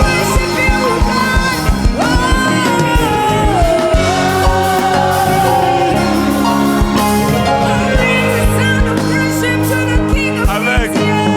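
Live band and choir playing a gospel song: a lead voice sings sustained, gliding lines over bass, keys and a steady drum beat.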